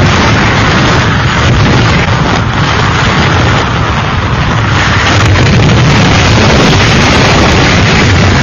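Loud, steady rushing storm noise with a heavy low rumble, dipping slightly for a few seconds midway.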